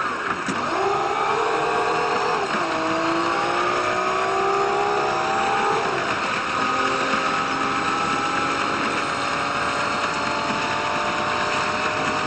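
Diesel train engine running under the noise of the moving train. Its note rises, drops about two and a half seconds in, rises again until about six seconds in, and then holds steadier.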